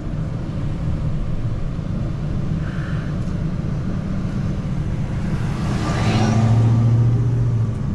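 Steady low rumble of a car's engine and road noise heard from inside the cabin while driving slowly. About six seconds in it swells louder for a couple of seconds, then eases off.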